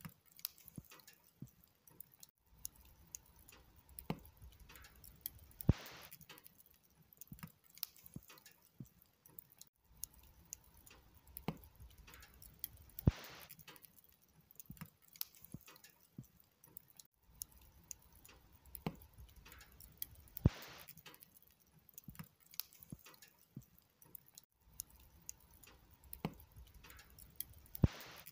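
Wood logs burning on a bed of embers, crackling with many small irregular pops and a sharp louder pop about every seven seconds.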